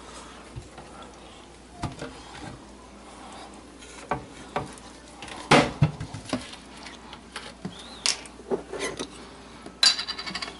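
Scattered knocks and clinks of kitchen items being handled on a countertop: bottles and utensils picked up and set down, the loudest knock about halfway through and a short ringing clatter near the end.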